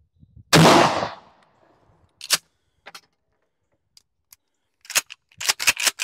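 A single shot from a Mossberg 590 A1 pump shotgun firing a 12-gauge mini slug about half a second in, dying away over about half a second. It is followed by a few sharp metallic clacks of the pump action being worked, with a quick cluster of them near the end.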